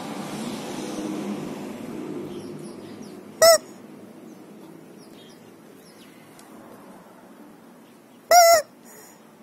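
Rubber screaming chicken squeak toy squeezed twice: a short, loud squawk about three and a half seconds in, and a longer one about eight seconds in that bends up and down in pitch.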